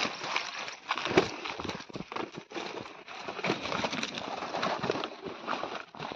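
Slow, careful footsteps crunching and rustling through dry fallen leaves and grass on loose soil going downhill. The steps come as an irregular series of crackly crunches.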